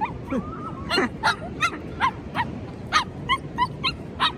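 A beagle yipping and whining in a quick run of short, high-pitched calls, about three a second, each dipping slightly in pitch.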